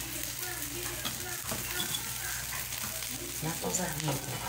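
An egg omelette with ground beef, ham, cheese and tomato paste sizzling steadily in a frying pan.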